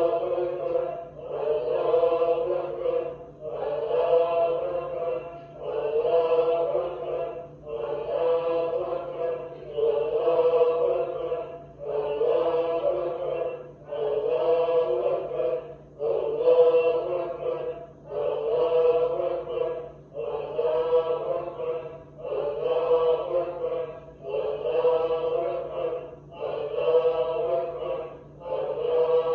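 A congregation of voices chanting dhikr, the recitation of the names of God, in unison. One short phrase repeats evenly, about every two seconds.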